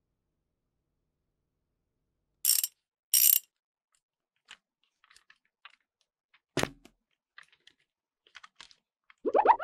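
A plastic toy train being handled on its plastic track: two short rattles of its wheels and gearing about two and a half seconds in, then light scattered clicks and one sharper knock. Just before the end a rising boing-like sound effect starts.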